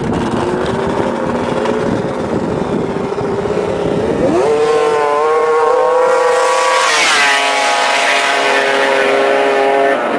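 Two racing snowmobiles launching side by side on lake ice. Their engines rev up sharply about four seconds in and hold a high whine. The sleds then pass, and the pitch drops to a lower steady note with a rush of noise.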